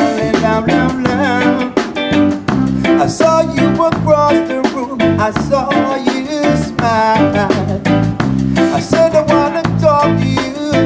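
Live reggae band playing, led by an electric guitar, with a steady, even beat.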